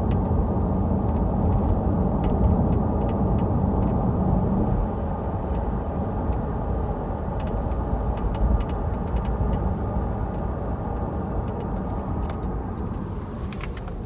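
Tesla Model 3 driving, with steady road and tyre rumble and an irregular light clicking rattle from the left rear suspension.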